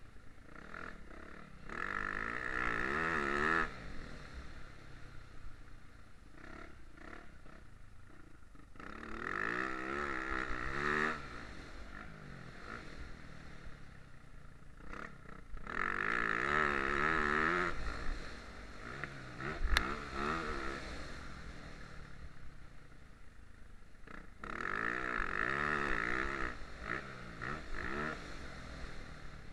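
Motocross bike engine revving hard in four long pulls, its pitch rising and falling through the gears. It drops back to a quieter run between the pulls. A single sharp knock comes about two-thirds of the way through.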